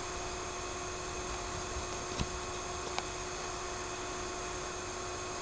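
Steady hiss and electrical hum of the recording's background noise, with two faint clicks about two and three seconds in.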